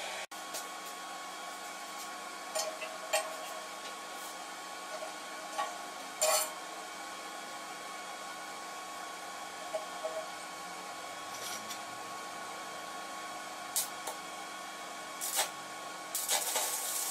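Scattered light clicks and taps from handling the axe's handle and binding wire, over a steady faint hum, with a longer stretch of rubbing and rattling near the end.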